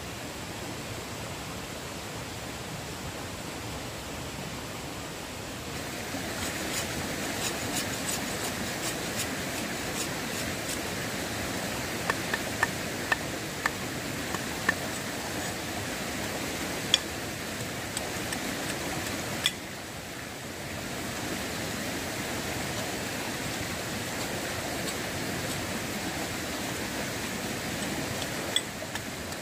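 Steady rushing of a stream, with a run of sharp knocks from about six to twenty seconds in as a machete chops leafy branches against a rock.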